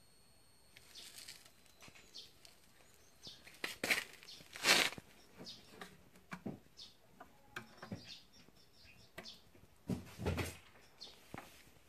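Kittens scuffling and pattering about on a concrete floor, with scattered light knocks and rustles. Louder rustling rushes come about four to five seconds in and again about ten seconds in.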